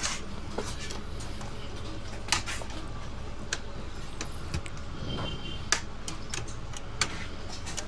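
Plastic snap-fit clips of an HP 240 G6 laptop's bottom cover clicking as the cover is pried loose along its edge by hand: a series of sharp, scattered clicks, about one a second, over a steady low background hum.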